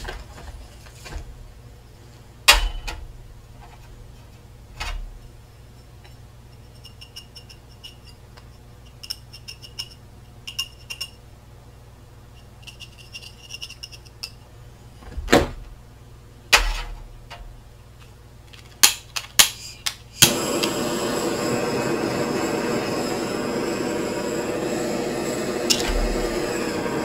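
Scattered clicks and knocks of small objects being handled, then a quick run of sharp clicks and a butane blow torch lighting about two-thirds of the way in, running with a steady hiss to heat pewter in a casting ladle.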